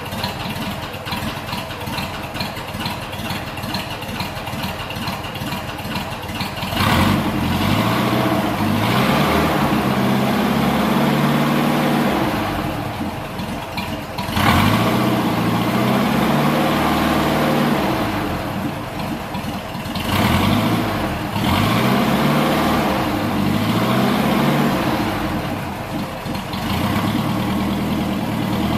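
Volkswagen Beetle's air-cooled flat-four engine running through a custom exhaust with twin tailpipes: it idles with a pulsing beat, then is revved up four times, about 7, 14, 20 and 26 seconds in, each rev held for a few seconds with the pitch rising and falling before dropping back.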